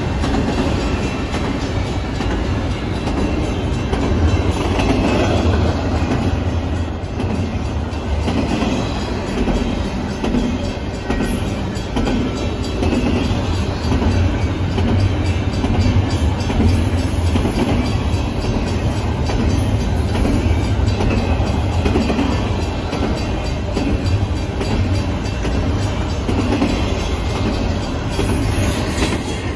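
A double-stack intermodal freight train's container cars rolling past: a steady rumble of steel wheels on rail with a repeating clickety-clack.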